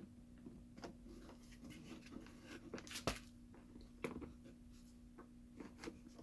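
Handling of an electric chainsaw's bar, chain and cover as the chain is refitted: scattered clicks and knocks of parts being moved, with one sharp click about three seconds in and another about a second later. A steady low hum runs underneath.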